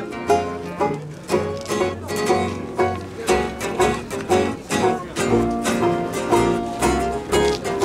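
Music on plucked string instruments: a steady pulse of short plucked notes, about two a second, over low bass notes.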